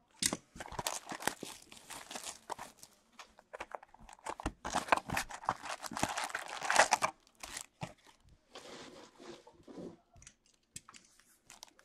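Plastic shrink wrap torn off a cardboard box of trading cards, the box lid opened and foil card packs pulled out and stacked: crinkling, tearing and scraping of plastic, foil and cardboard, busiest in the middle and sparser toward the end.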